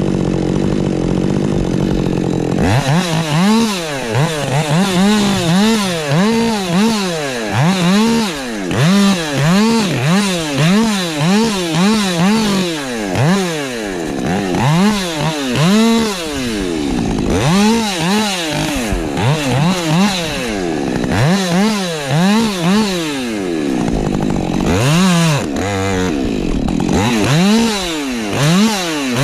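Husqvarna 550 XP Mark II two-stroke chainsaw running steadily at low speed. About two and a half seconds in, it is revved up and down over and over, rising and falling in pitch roughly once a second.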